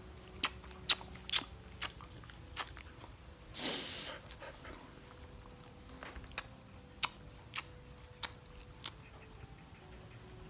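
An old Australian cattle dog licking a man's face and lips: about a dozen short, wet smacking clicks at an uneven pace, with one breathy sniff just under four seconds in.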